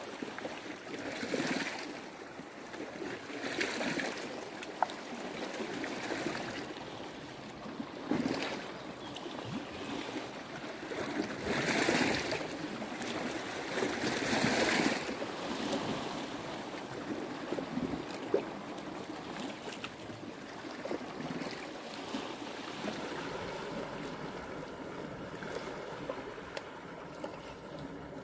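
Small sea waves washing against a rocky shore, swelling and falling back every few seconds, with a few faint clicks.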